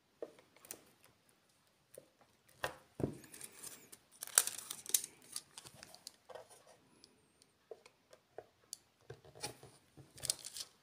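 Hard plastic being handled: clicks, scrapes and crinkling as an acrylic diamond-painting panel is worked into the slot of a plastic LED night-light base, the busiest stretch about four to five seconds in.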